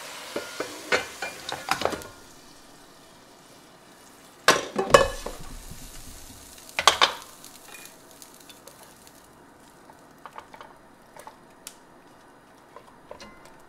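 Fish sizzling as it fries in a pot, the sizzle dying away in the first two seconds as the pot is lifted off the gas burner, with a few clinks of the pot. Then two loud clattering knocks of pot and food, around five and seven seconds in, as the fish is tipped into a larger pot, followed by faint taps of chopsticks stirring the fish.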